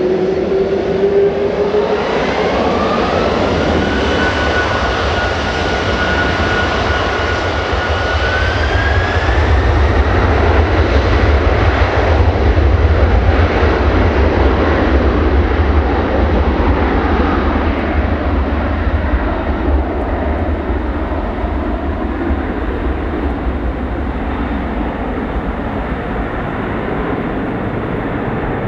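Boeing 747-400's four turbofan engines spooling up to takeoff thrust. A fan whine climbs in two steps over the first ten seconds under a deep rumble, which swells to its loudest about halfway through as the jet accelerates down the runway, then slowly fades as it rolls away.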